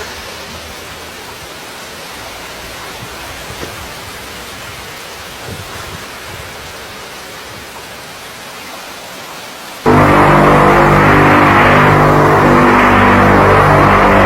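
Steady hiss, then about ten seconds in a loud droning sound made of many held tones cuts in abruptly: one of the so-called strange sounds from the sky.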